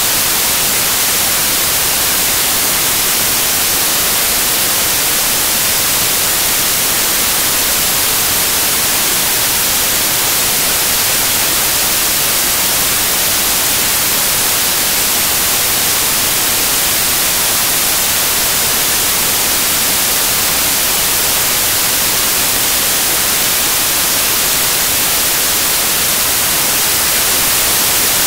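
Steady, loud hiss of white-noise static, strongest in the high end, with no rhythm or change.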